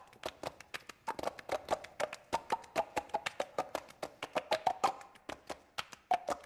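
Body percussion: a fast, uneven rhythm of sharp clicks and taps, several a second, many with a short hollow pitch like a wood block.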